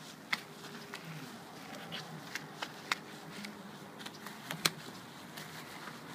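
Cloth mitter strips of an automatic car wash slapping and rubbing across a car's side windows, heard from inside the car. A steady wet swishing with a low hum underneath and scattered sharp slaps on the glass, the loudest about two-thirds of the way through.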